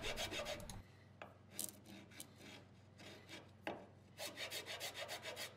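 Hand rasp filing the rough edge of a hole-saw cut in plywood. A few separate strokes come first, then a quick run of back-and-forth strokes near the end.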